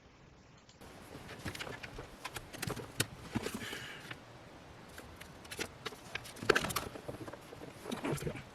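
Irregular clicks, knocks and light rattles from hands working the dash camera cable and plastic interior trim inside the car.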